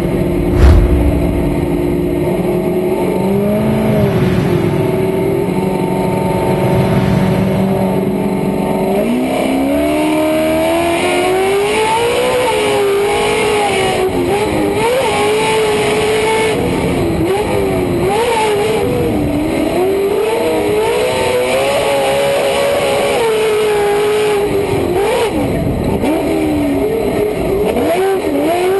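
Pro 2 short-course off-road race truck's engine heard from inside the cab. After a loud thump about a second in, the engine holds steady revs for several seconds, then revs up hard and keeps rising and falling as it is driven at race pace.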